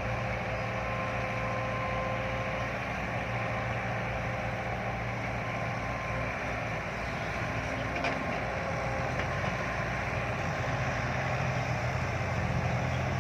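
Heavy diesel engine running steadily, a low even drone. A faint steady whine sits over it for the first few seconds.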